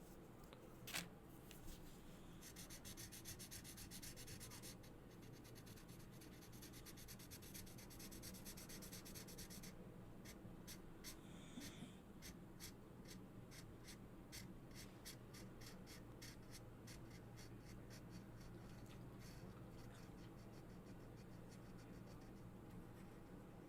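Felt-tip markers scratching on paper in short back-and-forth colouring strokes, quick and dense at first, then slower and more evenly spaced. A single sharp click about a second in.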